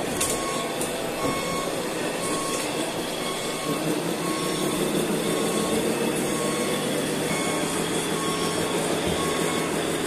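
Reversing alarm on a radio-controlled construction model beeping steadily, one short beep about every 0.8 seconds, over a steady machine drone that grows a little louder about four seconds in.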